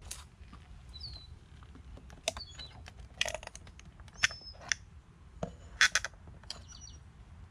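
Small birds chirping: scattered short calls and a few quick downward-sliding whistles, with several sharp clicks among them.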